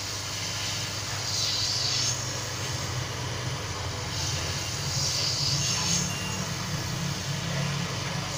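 Handheld hot-air heat gun running steadily: its fan motor hums under a rush of blown air, and the air hiss grows louder twice. It is heating the edge of a phone's touchscreen to soften the adhesive so the glass can be lifted off.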